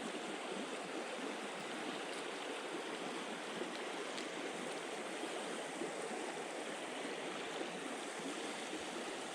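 River current flowing steadily: a continuous rush of moving water.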